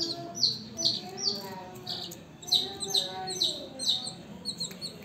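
Newly hatched chicks peeping over and over, each short high peep falling in pitch, about two or three a second.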